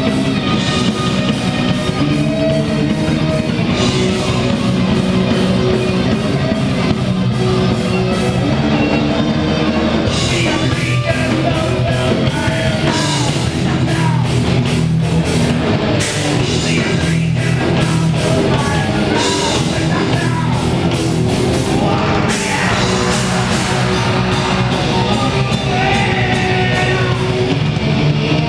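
Live heavy rock band playing loudly: electric guitars, bass and drum kit, with a singer on the microphone.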